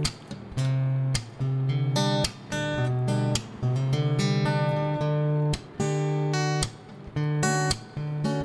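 Background music: a guitar strumming chords, with sharp strokes and ringing chords between them.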